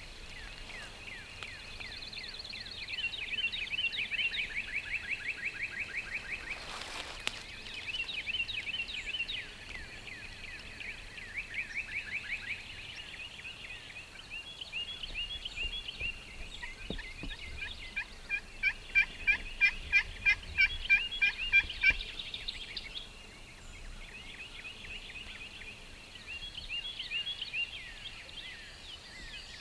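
Birds calling in the woods: runs of rapid repeated high notes, each run lasting a few seconds, the loudest run of evenly spaced notes about two thirds of the way through. A brief rustle about seven seconds in.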